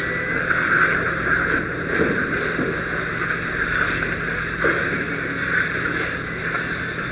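Fire hose nozzle spraying a water stream into a burning vehicle's cab: a steady rushing hiss of water, with a steady low hum underneath.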